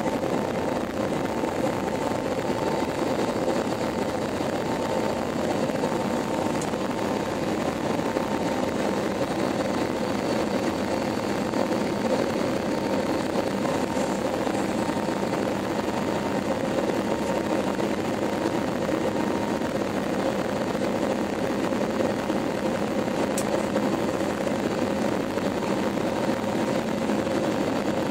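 Steady engine drone and rushing air heard inside a passenger airplane's cabin in flight, an even noise with a few constant hum tones running through it.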